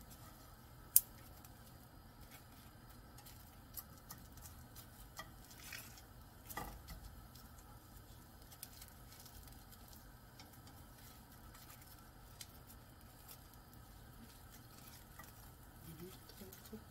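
Sheets of oiled laver (gim) crackling and rustling as they are handled and laid into a frying pan, heard as scattered small ticks and crackles over a faint low hum. One sharp click about a second in is the loudest sound.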